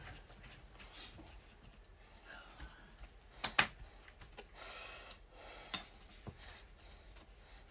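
Handling noises from unpacking a microphone and its parts: light rustling with scattered clicks and knocks, the loudest a sharp double click about three and a half seconds in.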